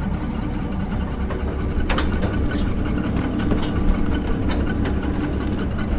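An engine idling with a steady low hum, with a few short, sharp clicks and knocks over it as the wooden beehive boxes are handled.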